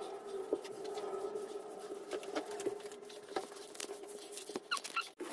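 Scattered light taps and clicks of someone moving about and handling things close by, over a faint steady hum.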